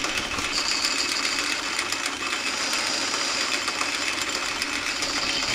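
Flat-belt-driven metal lathe running steadily while turning a steel workpiece down to diameter. A steady high whine joins about half a second in and stops near the end.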